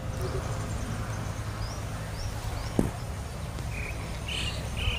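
Outdoor ambience with a steady low rumble. A few faint high chirps come midway, a single click follows, and near the end an animal gives a short call repeated about twice a second.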